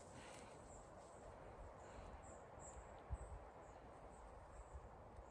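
Near silence: faint, short, high chirps repeating irregularly in the background, with a low rumble and one soft thump about three seconds in.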